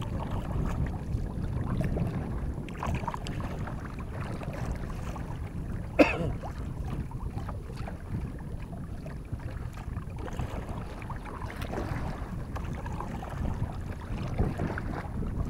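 Steady wind noise on the microphone over the splash of kayak paddle strokes, with one sharp knock about six seconds in.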